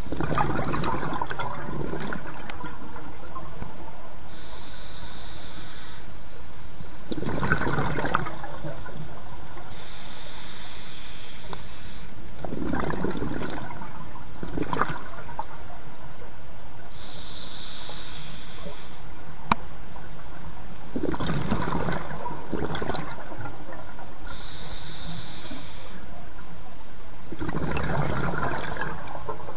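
Scuba diver breathing through a regulator: a short hissing inhale alternating with a longer burst of exhaled bubbles, a full breath about every six to seven seconds.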